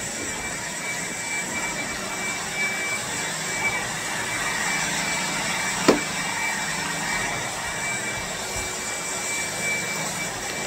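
Steady whirring hum of a running appliance with a thin, even high whine over it, and one sharp click about six seconds in.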